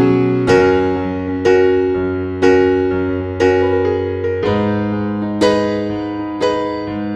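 Background music: a slow electric piano piece, chords struck about once a second over a held bass note, each decaying before the next.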